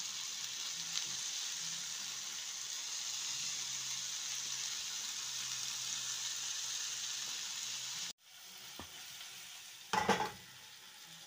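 Mixed vegetables (broccoli, cauliflower, peas and carrots) sizzling as they stir-fry in a frying pan. The steady sizzle cuts off abruptly about eight seconds in and comes back fainter, with a brief louder noise near the end.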